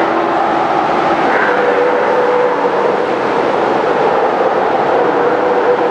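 A large crowd of sea lions calling all at once inside a sea cave, a continuous dense din of overlapping barks and groans with no single call standing out, with surf washing underneath.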